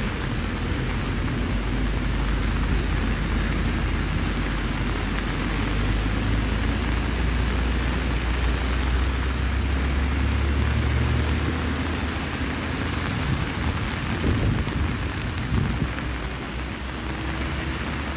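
Steady rain hiss with a heavy low rumble underneath that eases off about twelve seconds in; a few short knocks near the end.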